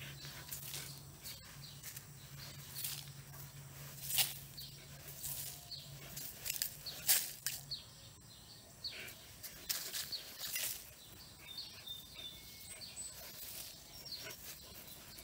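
Dog digging in loose dirt with its paws: irregular scratching scrapes and sprays of soil, two louder scrapes a little after four seconds and around seven seconds in. A low steady hum stops about six seconds in, and a few faint bird chirps come near the end.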